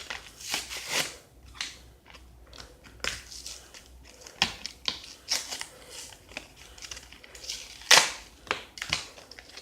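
Stiff plastic packaging of a new pack of scissors being pried and torn open: irregular clicks, snaps and crackles, with the loudest snap about eight seconds in.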